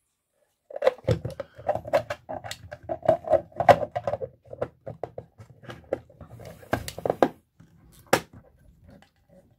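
Hard plastic handling noise: a 3D-printed box being turned in the hands and rubbed and clicked as a length of filament is pushed through its hinge, with one sharp click near the end.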